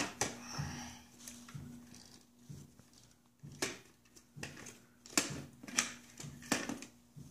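Toy fire truck knocking and clicking against a plastic high-chair tray as a toddler handles it and its ladder: irregular sharp clicks, the loudest in the second half, over a faint steady hum.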